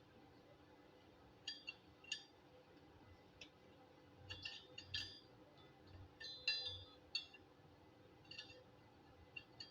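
Light metallic clinks and taps at irregular intervals, from small steel pieces being handled and set against each other; the loudest come about five and six and a half seconds in.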